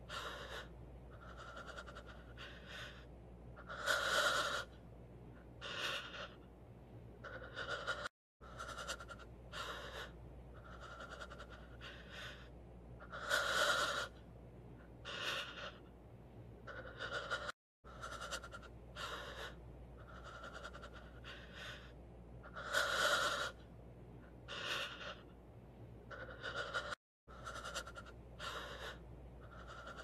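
Heavy, exaggerated panting of a person out of breath, short breaths with one louder, longer breath in each cycle. The same breathing clip repeats about every nine and a half seconds, with brief silent gaps between repeats.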